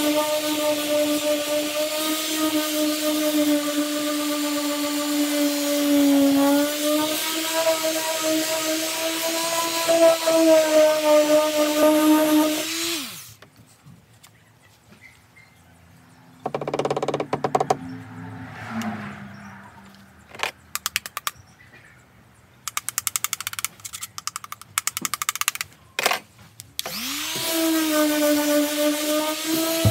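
Ryobi electric orbital sander running steadily against the boat's painted deck, a constant motor hum. About 13 seconds in it is switched off and winds down, followed by some scattered knocks and quick rattling clicks. Near the end it is switched on again and spins back up to speed.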